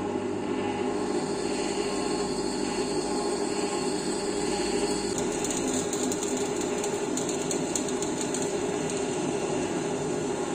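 Belmash floor-standing drill press with its induction motor and variable-speed drive set to the lowest speed, a 12 mm twist drill cutting into a steel rectangular tube. The motor hums steadily, and about five seconds in an irregular crackling scrape of the bit cutting metal joins it.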